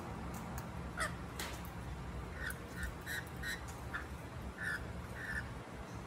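Parrots squawking: about eight short, harsh calls in quick succession.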